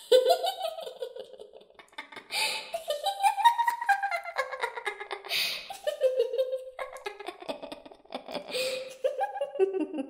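A little girl's voice singing a slow, eerie wordless tune in long gliding phrases, with a short breathy hiss between phrases about three times.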